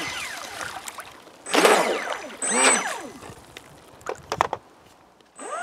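Feilin FT012 RC racing boat's brushless electric motor whining in bursts of throttle, the pitch rising and falling with each, with the hiss of water spray; the two loudest bursts come about a second and a half and two and a half seconds in. A few short knocks follow near the end as the boat slows.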